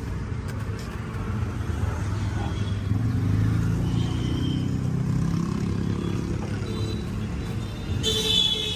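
Street traffic: a motor vehicle's engine rumbling close by, swelling about three seconds in, with a brief high-pitched sound near the end.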